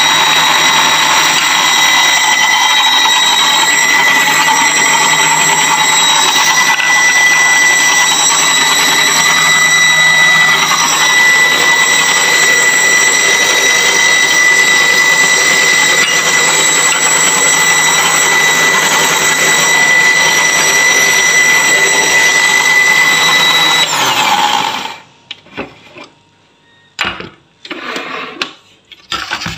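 Deuron electric blender running steadily with a constant high whine as it grinds green chutney of mint, coriander and lemon juice in its jar. About five seconds before the end the motor is switched off and winds down, followed by a few knocks and clinks as the jar is handled.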